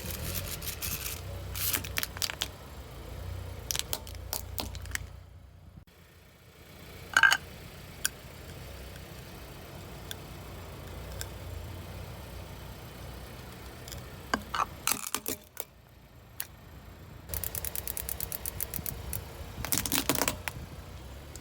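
Car tyre rolling slowly over crunchy objects and crushing them, with scattered cracks and snaps over the low running of the car's engine. A loud sharp crack comes about seven seconds in, and a rapid run of crackling near the end.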